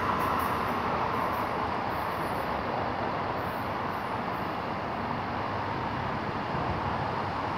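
Steady rush of an Amtrak Northeast Regional passenger train's wheels on the rails as it pulls away down the track, slowly fading.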